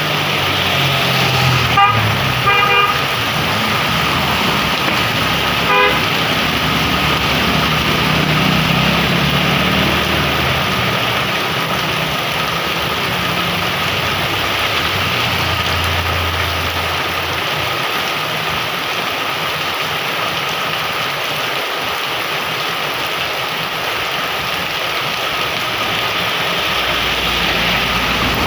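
Heavy rain falling steadily, with a vehicle's engine passing and its horn giving short toots about two seconds in, again just before three seconds, and once more near six seconds.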